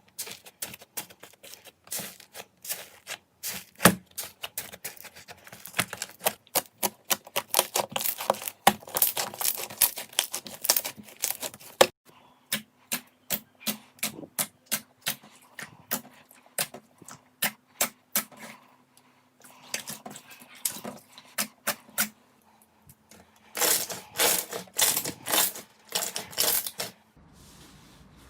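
Slime being squeezed and poked by hand close to the microphone, giving a fast run of crisp clicks and pops. The clicks thin out in the middle, then come thick again in a burst near the end.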